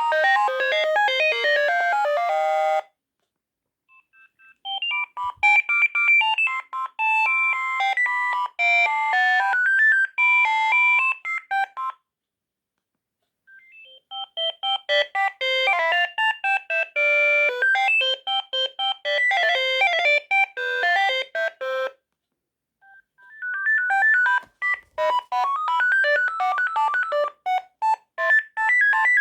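Sagem MY 3022 mobile phone ringtones played one after another: synthesized electronic melodies with several notes at once. One tune cuts off about three seconds in, and three more each start after a second or two of silence, about four, thirteen and twenty-three seconds in.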